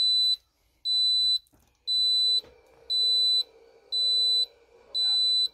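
Instant Pot Duo Crisp electric pressure cooker beeping six times, about once a second, in high-pitched half-second beeps: the signal that the pressure-cooking cycle has ended.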